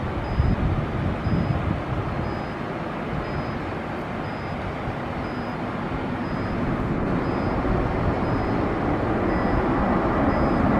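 Jet engine noise from an Airbus A320-214 landing: a steady rumble that grows louder over the last few seconds as the airliner reaches the runway.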